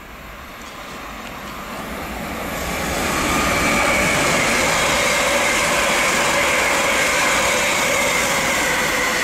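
Electric multiple-unit passenger train approaching and passing at speed. The rumble and rush of wheels on rail build over about three seconds, then hold steady and loud with a high whine as the carriages go by.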